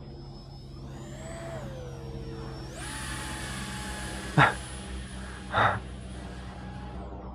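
The 50 mm electric ducted fan of a small 3D-printed RC jet whining in flight; its pitch rises about a second in, then jumps sharply higher near three seconds in as the throttle is opened, holding there until it fades just before the end. Two short, louder sounds about a second apart cut across it midway.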